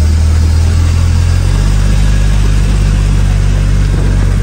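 Engine of a lifted rock-crawling 4x4 running loud and low as the vehicle crawls over the rock just above, its low engine note changing about a second and a half in.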